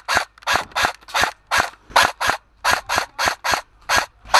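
Airsoft rifle firing single shots in quick succession, about four a second, each a short sharp crack of the gun cycling.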